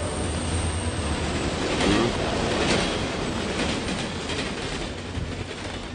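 Passing train: a steady rumble and rattle of wheels on the rails, easing off slightly toward the end.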